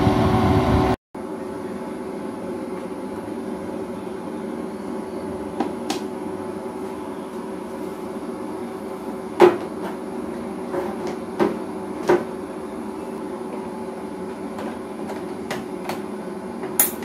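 Steady hum from a running MPP Solar inverter, with a faint high whine over it. Over the hum come about half a dozen light plastic clicks and knocks as a communication cable and its plug are handled at the inverter's COM port; the sharpest is about a third of the way in.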